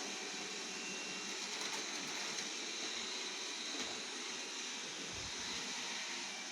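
Xiaomi Mijia 1C robot vacuum running: a steady whir with a faint high whine, and a brief low rumble about five seconds in.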